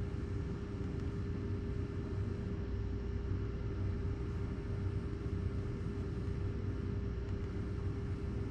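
Steady low hum and rumble with one constant faint tone above it, unchanging throughout: a machine running in the background.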